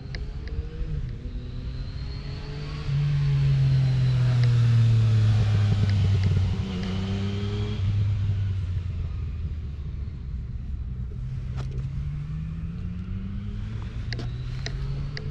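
A motor vehicle passing by: its engine hum is loudest a few seconds in and drops in pitch as it moves off, and another vehicle is heard approaching, rising in pitch, near the end.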